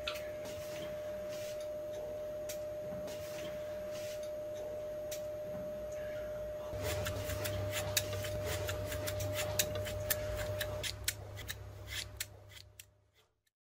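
Scissors snipping through hair again and again, the snips coming thicker and faster from about seven seconds in, over a steady held tone and a low hum; everything fades out near the end.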